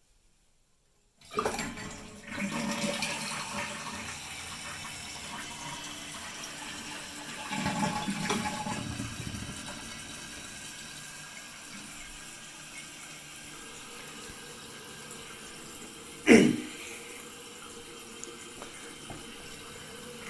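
Eljer Emblem toilet flushing: the flush starts suddenly about a second in with a rush of water, surges again around eight seconds, then settles into the steady hiss of the tank refilling with a faint steady tone. A sharp knock about sixteen seconds in is the loudest sound.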